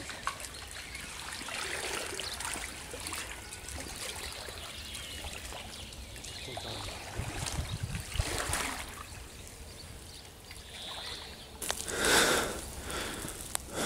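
Shallow stream water trickling and sloshing around a wading angler's legs, with a louder splash near the end as a hooked trout is scooped into the landing net.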